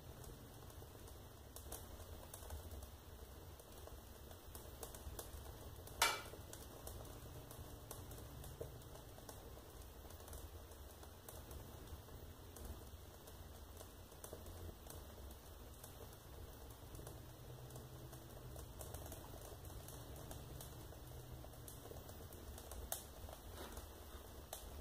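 Wood-stove fire burning a disposable diaper on the logs, heard through the stove's glass door: faint irregular crackling with small ticks and one sharp, louder pop about six seconds in.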